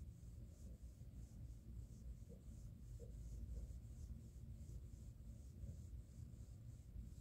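Fingers rubbing and scratching a kitten's chin fur: a faint, soft scratching that repeats about twice a second over a low steady rumble.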